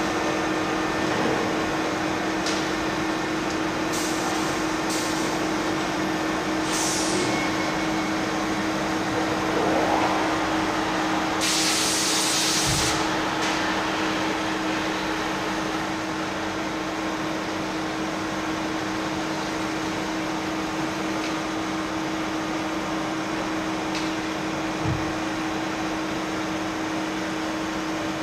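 Machine shop ambience: a steady drone of running machinery and ventilation with a constant hiss. About twelve seconds in, a short, loud hiss of air lasts a second or so, and a faint knock comes near the end.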